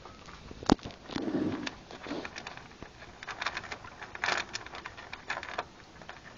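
Rustling and scattered small clicks in pellet bedding as a Russian dwarf hamster moves about, with one sharp click under a second in.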